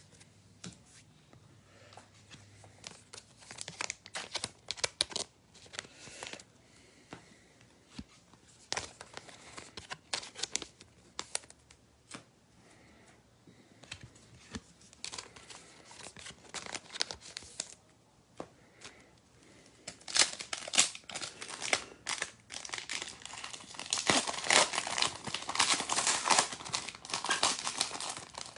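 A trading-card pack wrapper crinkling and tearing as it is opened, with cards being handled; the crackling comes in scattered bursts and gets louder and denser near the end.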